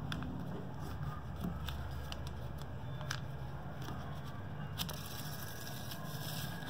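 Lined notebook paper rustling and crinkling as it is folded and pressed by hand, with a few sharp taps, over a steady low hum.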